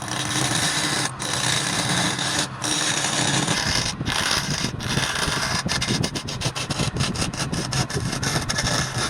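Wood lathe running with a turning tool cutting into the spinning wood: a steady scraping hiss over the machine's hum. Brief gaps break it a few times, then in quick succession over the second half.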